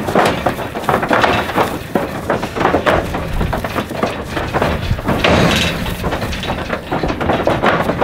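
Calves unloading from a stock trailer: hooves clattering and thumping on the trailer's wooden floor and rattling its metal gate, a rapid string of knocks and bangs.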